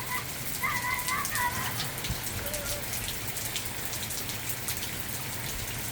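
Hurricane squall rain coming down steadily, an even hiss of rain with drops landing around the microphone.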